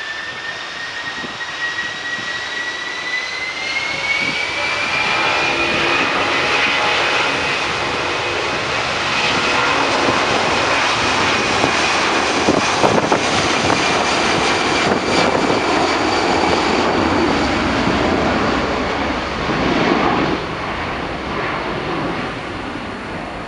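A Boeing 757-200's two Pratt & Whitney PW2037 turbofans spooling up to takeoff thrust. A whine rises in pitch over the first several seconds, then a loud jet roar builds as the airliner accelerates down the runway past the listener, easing somewhat near the end as it moves away.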